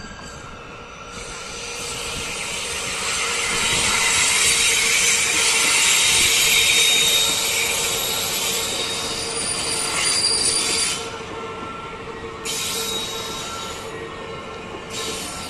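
BLS electric multiple unit rolling slowly past along the platform, its wheels squealing with several steady high tones over the running noise. It builds to its loudest about five to seven seconds in, then eases off about eleven seconds in.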